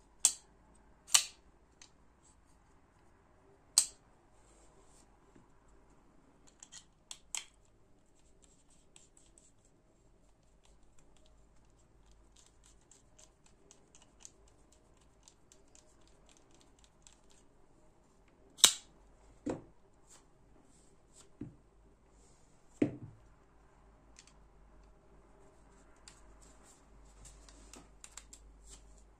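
Freetiger FT61 folding knife's blade being flicked open and shut, giving a few loud, sharp metallic snaps in the first four seconds. Then come faint scratchy ticks of small screwdrivers working the pivot and handle screws, another sharp click about 18 seconds in, and a few dull knocks soon after.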